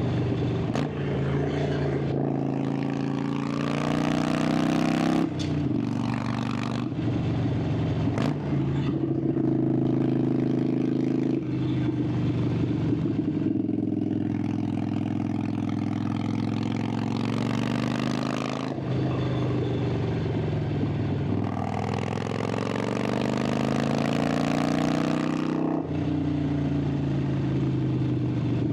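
Harley-Davidson Sportster 883's air-cooled V-twin exhaust on the move, the pitch climbing under throttle and dropping back sharply several times as the rider shifts gears and eases off through the bends.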